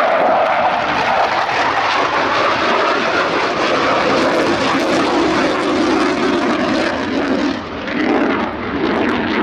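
Military jet taking off, its engine noise loud and steady, the pitch falling over several seconds.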